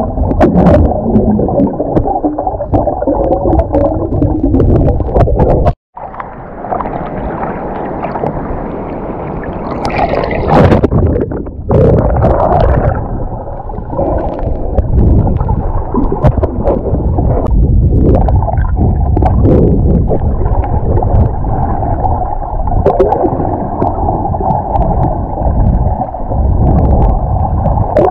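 Muffled underwater sound from a submerged camera: water rushing and gurgling against the housing, with stretches of brighter bubbling and splashing, and the sound cutting out abruptly twice.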